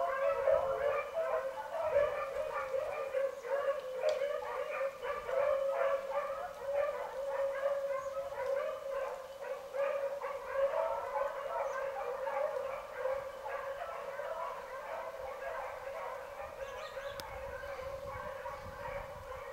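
A pack of beagles baying while running a rabbit, many voices overlapping without a break, growing fainter over the last few seconds.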